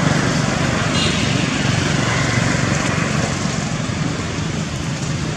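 Steady outdoor background noise: a constant low rumble with an even hiss over it, with no distinct events.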